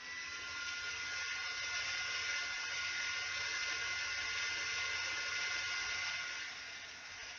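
A steady hiss with a faint high whine. It starts suddenly, holds steady, and eases off near the end.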